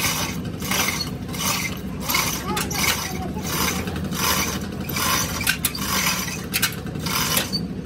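Repeated back-and-forth scraping strokes of a hand tool on a hard surface, about one every 0.7 seconds, over a steady low machine hum.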